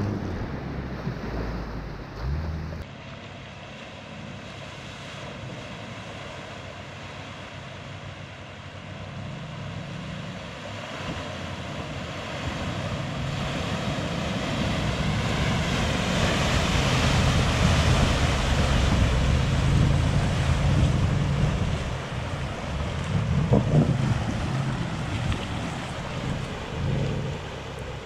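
Range Rover Sport L494 wading through floodwater: water rushing and splashing around the vehicle over its running engine. It builds to its loudest about two-thirds of the way through as the SUV pushes through the deepest part, then eases.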